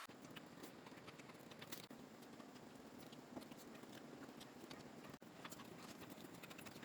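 Near silence: a faint steady hiss with scattered small light clicks and rustles.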